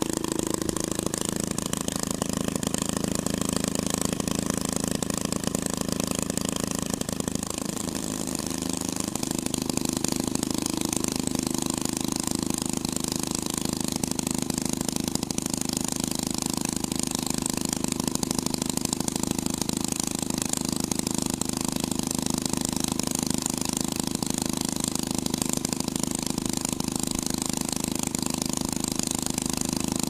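Twin-engine hot rod running at a steady speed. Its engine note dips briefly and recovers about eight seconds in, then holds steady again.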